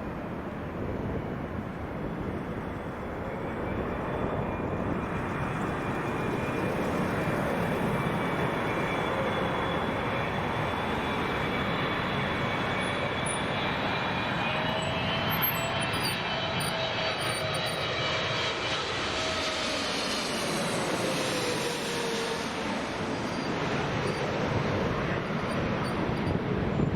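Jet airliner's engines passing by: a steady rumble with whining tones that bend downward in pitch about two-thirds of the way through as the aircraft goes past.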